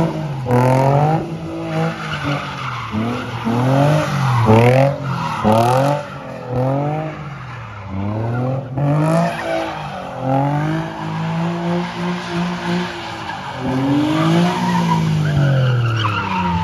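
A car doing donuts, its engine revved up and down over and over while the rear tyres spin and squeal on the asphalt. The revs swing about once a second at first, then in longer, slower swells.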